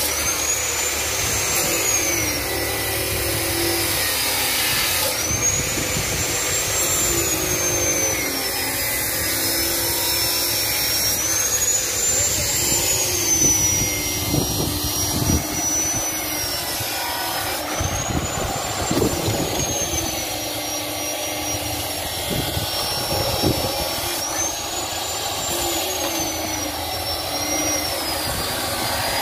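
A steady mechanical drone with a thin high whistle that rises and falls about every six seconds. Under it, a few dull knocks from a hand lever straw cutter chopping straw.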